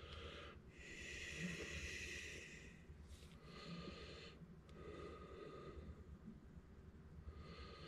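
Faint, slow breathing close to the microphone: several soft breaths, each a second or two long.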